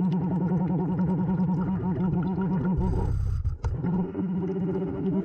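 Scuba-style regulator breathing underwater on a Blu3 Nemo surface-air system: a long, low, buzzing rumble of exhaled bubbles, a brief hiss about three seconds in, then another exhale.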